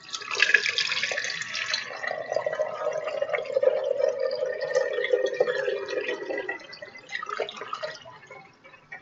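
Water poured from two measuring cups at once into two kitchen funnels, splashing and draining through into clear plastic containers below. The splashing is loudest in the first couple of seconds, a steady tone runs under it through the middle as the funnels fill, and it dies away about eight seconds in.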